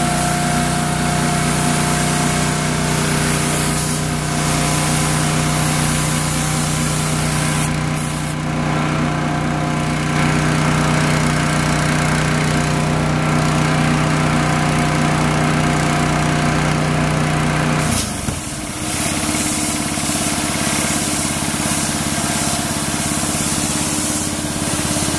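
Machinery runs steadily, a droning hum with a low pulse under a hiss. About 18 seconds in the sound changes abruptly to a lighter, steady hum with hiss.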